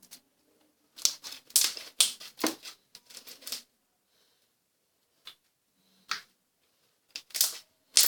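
Slime with soft clay mixed in being squeezed and pressed by hand, making clusters of sharp clicks and little pops with short quiet gaps between them.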